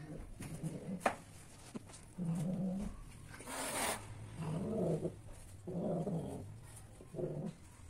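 Female cat in heat giving low, drawn-out yowls: four calls about a second and a half apart, the mating call of a queen in estrus.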